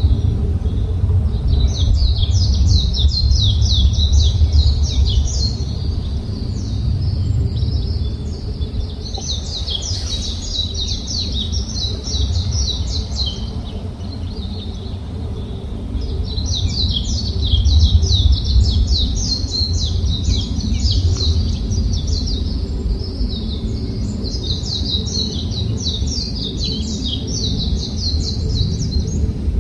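Songbirds chirping in fast, chattering runs, four bouts of several seconds each, over a constant low rumble.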